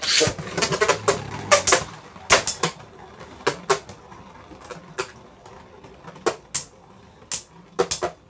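Two Beyblade spinning tops clashing in a plastic stadium: a loud clatter right at the start, then sharp, irregular clicks as the tops strike each other and the arena walls, coming thick for the first few seconds and then only every second or so.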